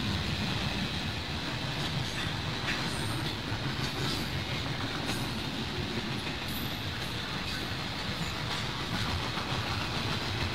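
Canadian National freight train's double-stack container cars rolling past: a steady low rumble with wheel clatter on the rails and a few brief high wheel squeals.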